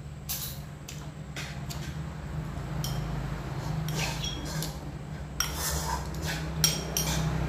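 Metal spoon scraping and clinking in a ceramic rice bowl, with the mouth sounds of eating, in a series of short, irregular clicks and scrapes. A steady low hum runs underneath.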